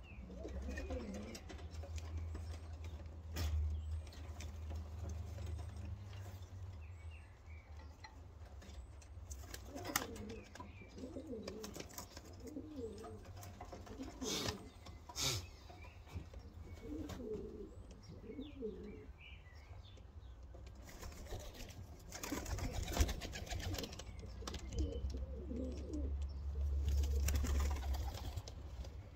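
Young racing pigeons cooing in short, repeated low calls, with a few sharp clicks and wing flaps among them. A low rumble of wind on the microphone runs underneath and grows stronger near the end.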